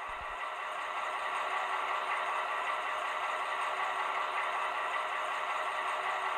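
Model train running past: its four-axle Umbauwagen coaches rolling over the track with a steady running noise. A brief low thump just after the start.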